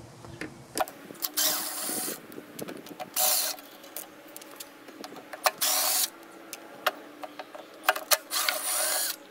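Cordless drill-driver backing out the screws of a Husqvarna 145BT blower's recoil starter housing: four short runs of the motor, each under a second, with light clicks of the bit and screws in between.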